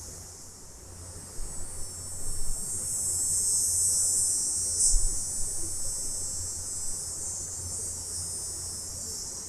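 Chorus of cicadas at night: a high-pitched buzzing drone that swells a couple of seconds in and eases off toward the end. A few brief low thumps sound under it, one about halfway through.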